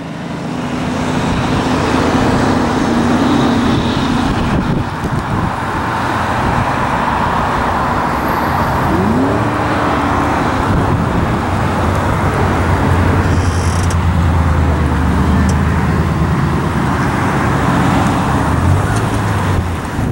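A-10 Thunderbolt II's twin turbofan engines droning steadily as the jet passes overhead, mixed with road traffic.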